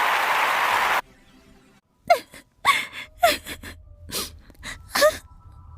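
A loud hiss for the first second, cutting off sharply. Then a series of short gasping, whimpering vocal sounds, several sliding down in pitch, like a character sobbing.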